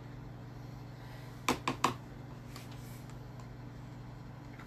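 Quick plastic clicks and knocks, three in a row about a second and a half in, as cut cucumber pieces are pressed into a small Tupperware chopper bowl, over a steady low hum. Another sharp click comes at the very end as the blue lid is fitted.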